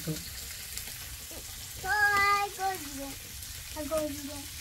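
A child's voice sings a held, high note about two seconds in and a shorter one near the end, over a steady low hiss.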